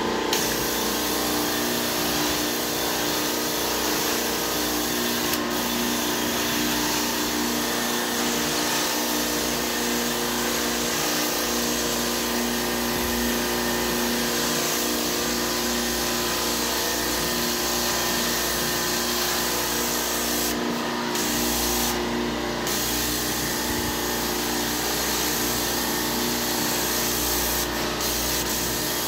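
Carpet-cleaning extraction wand working across carpet: the extractor's vacuum runs steadily with a motor hum under the hiss of the spray jets. The high hiss cuts out briefly a few times in the last third, as the spray stops and starts.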